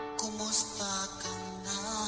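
Recorded Filipino (OPM) love song playing, with sustained pitched chords and a sharp percussive hit about half a second in.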